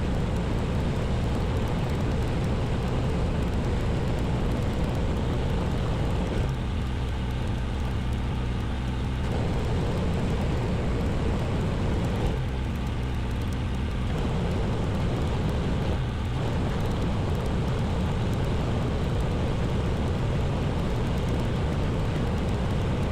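Small engine-driven washing pump running steadily with a hiss over its low hum; twice, about six and twelve seconds in, the hiss drops away for two or three seconds, leaving the engine's hum.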